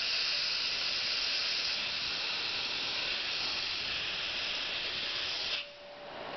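Steady hiss from the failed air compressor, whose motor will not start, cutting off suddenly about five and a half seconds in; a faint steady hum remains after it.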